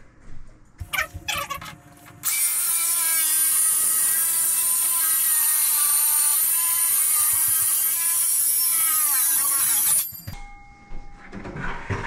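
Circular saw cutting across a countertop in one continuous pass: it starts about two seconds in, runs loud and steady for about eight seconds, sags in pitch near the end of the cut and stops suddenly. A few clicks and knocks come before it, as the saw is set on the board, and after it, as the cut piece is handled.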